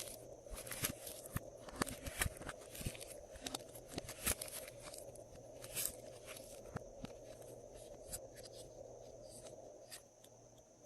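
Glossy slime being worked by hand, giving irregular wet clicks and pops: dense for the first few seconds, then thinning out.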